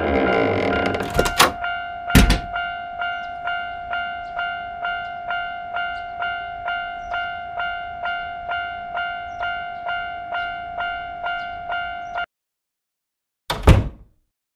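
Railway level-crossing warning bell ringing about twice a second over a steady tone, then cutting off suddenly. Two loud knocks come just before the ringing begins, and a single thump follows shortly after it stops.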